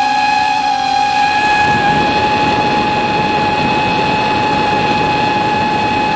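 Motor and propeller of a small aircraft running at a steady high pitch, with wind rushing past that grows louder about a second and a half in.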